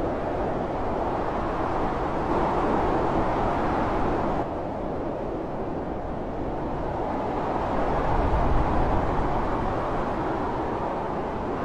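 Blizzard wind blowing hard and steadily, swelling and easing in gusts, with a stronger low gust about two-thirds of the way through.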